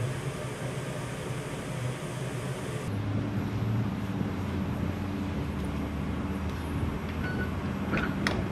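Road traffic noise, then after a cut a steady low hum beside an electric tram standing at a stop. A few sharp clicks near the end as the tram's cab door handle is worked.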